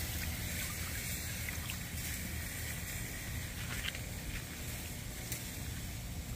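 Water sloshing and dripping in a plastic bowl as soaked ears of corn in their husks are lifted and handled, over a steady low rumble and hiss.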